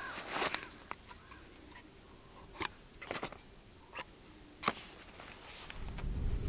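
Camera gear being handled: a padded lens wrap rustles as it is opened, then a large-format lens and its plastic caps give a handful of separate sharp clicks and taps. Wind starts rumbling on the microphone near the end.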